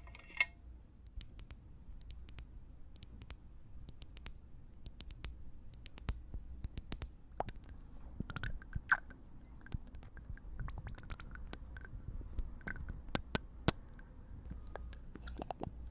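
Small ear-drop bottle handled close to the microphone: irregular sharp clicks and taps over a faint low hum.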